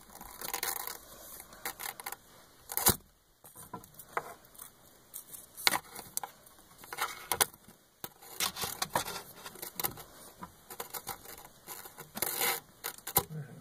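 Irregular taps, scrapes and rattles of a wire cat-toy wand and its dangling toy knocking against a wooden board and the rim of the hole, with a few sharper knocks.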